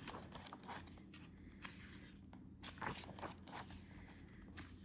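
Faint rustling and soft taps of printed paper and card being handled, a little louder about three seconds in.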